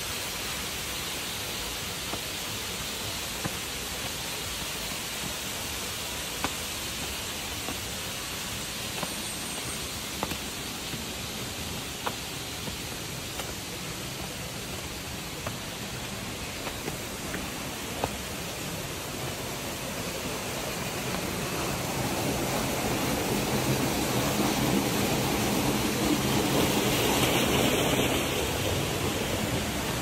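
Steady rushing roar of a high waterfall's falling water. It swells louder about three quarters of the way through, with a few faint taps in the first half.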